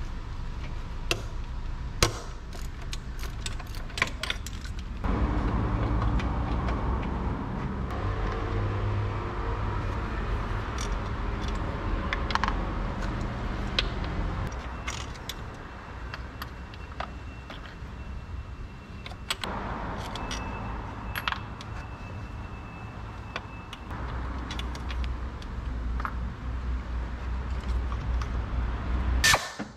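Tools and metal parts clinking and clicking as they are handled, many scattered sharp knocks, over a steady low rumble that grows louder about five seconds in.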